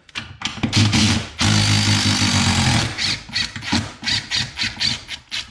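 Ridgid cordless driver backing out a long bolt from a garage door spring bracket. It runs in short bursts, then holds a steady run of about a second and a half in the middle, then gives a string of quick bursts near the end.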